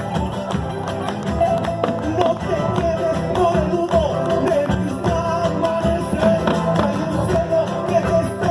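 Live Argentine folk music from a duo: a mostly instrumental passage, with a wavering melody line over steady rhythmic accompaniment.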